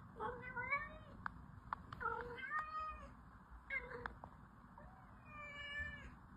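Domestic cat meowing several times, a run of short calls with the last one drawn out and held, over a few faint clicks.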